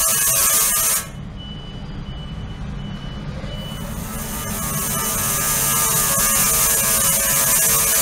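Ultrasonic cleaning tank running, a harsh buzzing hiss with a few steady whining tones from cavitation in the water. About a second in, the high hiss cuts out and the sound drops, then it swells back over the next few seconds.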